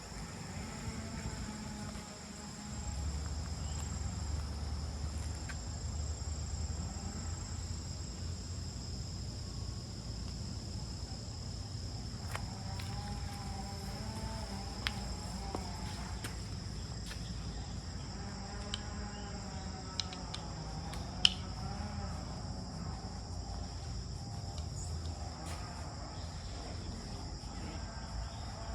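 Outdoor insect chorus, a steady high-pitched drone of two unbroken tones, over a low rumble. There is a single sharp click about 21 seconds in.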